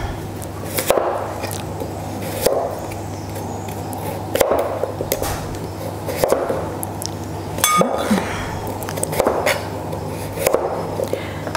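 Kitchen knife cutting peeled raw potatoes into long wedges on a cutting board, the blade knocking the board about seven times, one cut every one and a half to two seconds, over a steady low hum.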